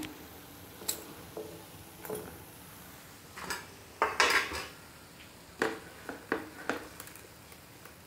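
Steel slotted spoon clinking and scraping against an iron kadhai as fried potato nests are lifted out of the hot oil: a series of light metal knocks, with a longer scrape about four seconds in.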